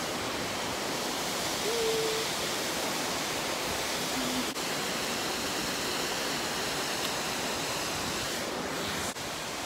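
Steady rush of cascading mountain water, an even hiss with no rhythm. A short faint tone sounds about two seconds in.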